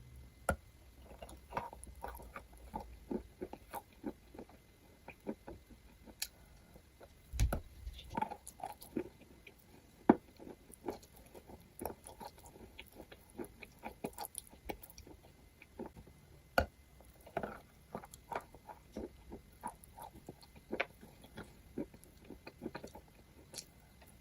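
Maria chalk being bitten and chewed close to the microphone: a steady, irregular run of dry crunches and snaps, with a few louder bites, the loudest about ten seconds in.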